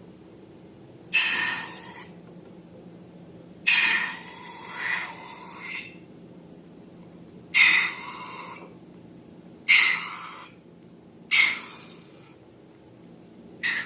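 Slime being squeezed and worked out of balloons: six short noisy bursts, each starting suddenly and fading within about a second, the second one longer and wavering.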